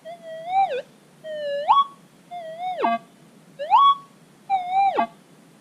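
Minelab GPX 4800 pulse-induction metal detector's audio through a loudspeaker, answering a nail swept under the coil: five short warbling tones, each swooping sharply up or down in pitch, with short gaps between.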